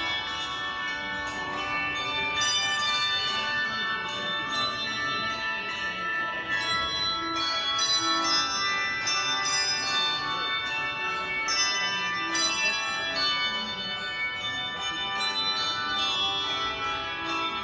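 Bells ringing, struck one after another in quick succession, each note ringing on and overlapping the next.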